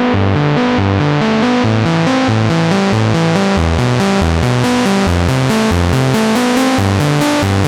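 Synthesizer demo music: a sequenced pattern of short, plucked-sounding synth notes over a stepping bass line, several notes a second in a steady rhythm.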